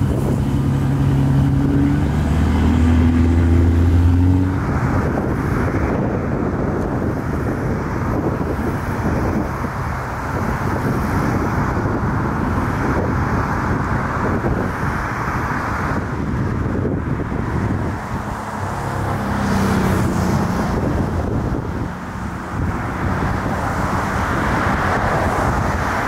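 Steady outdoor noise of wind and motor traffic, with an engine humming steadily for the first four seconds or so and again briefly about twenty seconds in.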